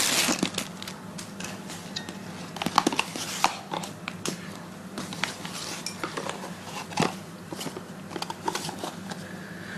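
Plastic packaging crinkling briefly, then scattered small clicks and taps as phone accessories are handled, over a faint steady hum.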